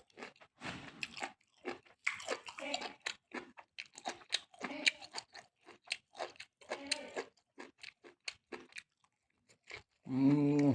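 A person chewing and crunching mouthfuls of spicy pork-tongue salad close to the microphone: irregular wet crunches and mouth smacks, with a short voiced 'mmm' near the end.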